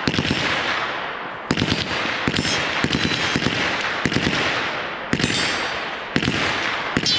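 Gunfire from many guns on a shooting range firing at once. Sharp shots overlap into a steady crackle, with denser clusters of shots about a second and a half in and again near the end.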